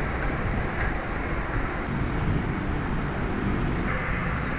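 Steady background noise with a low rumble, like road traffic or wind on the microphone; no distinct tool or part sounds stand out.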